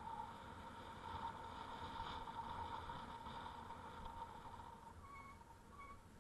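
Bicycle rolling along a paved street: a faint steady whirring hum over light road noise that eases off after about five seconds, followed by two short high squeaks near the end.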